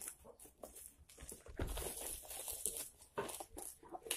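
Clear plastic wrap crinkling and tearing as it is pulled off a cardboard box, in dense crackles that are busiest in the middle.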